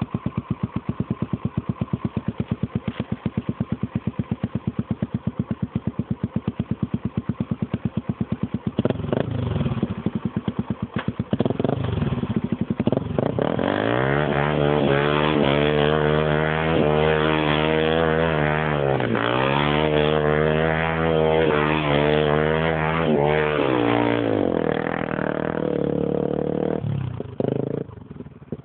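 Tuned Honda XR250 Tornado's single-cylinder four-stroke engine, idling with an even pulsing beat, blipped a few times, then ridden hard in second gear with the engine note rising and falling with the throttle, dipping sharply once midway, before easing back near the end.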